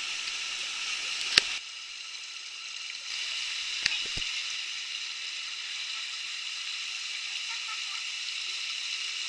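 Steady rush of river water over rocks in shallow rapids. A sharp click comes about a second and a half in, the rush drops a little for a moment, and two fainter clicks follow around four seconds.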